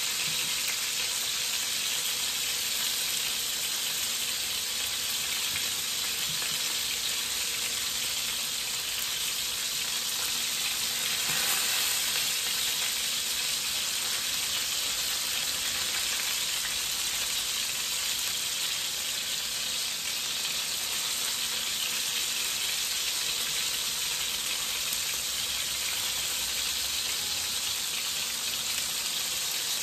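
Cod fillets sizzling steadily as they pan-fry in hot oil, with a slight swell in the sizzle near the middle.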